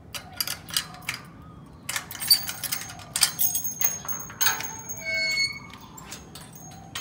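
Wrought-iron gate being worked open: a run of metallic clanks and rattles, then a short hinge squeak about five seconds in.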